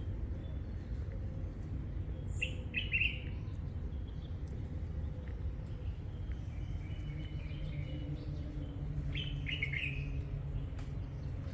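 Bird chirping in two short bursts of calls, about two and a half seconds in and again about nine seconds in, over a steady low background rumble.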